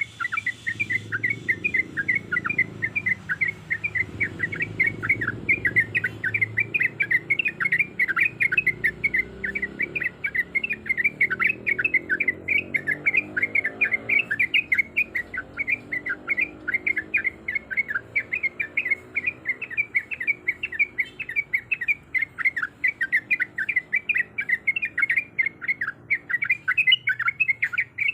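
Yellow-vented bulbul (trucukan) calling in a rapid, unbroken string of short, sharp chirps, about three a second.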